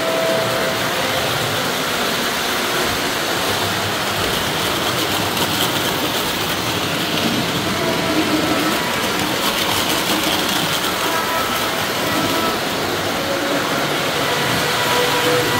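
Three-rail model trains running on their track: a steady whir and rumble of small electric motors and wheels on the rails.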